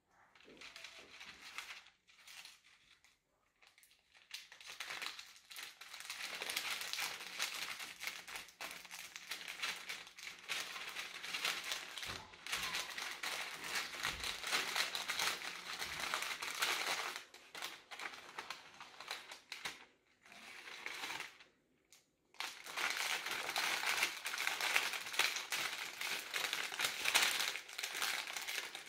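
Baking (parchment) paper being folded by hand around a fish and crimped shut into a papillote parcel, crinkling and rustling. It is faint and sparse for the first few seconds, then near-continuous, with a brief pause a little after twenty seconds.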